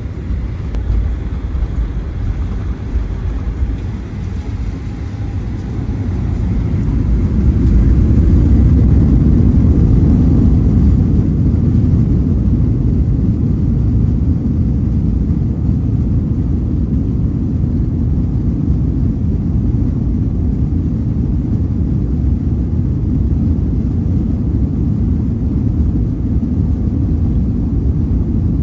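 Airliner cabin during the takeoff roll: a steady low rumble of engines and wheels on the runway that grows louder about six seconds in and stays loud.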